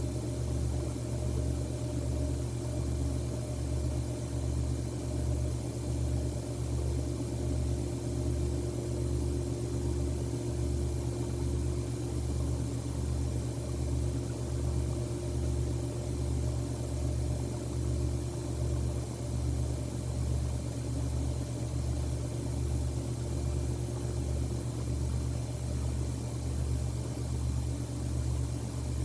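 A steady low hum with a slow, even pulse, joined by fainter steady higher tones, like a distant idling machine or electrical hum.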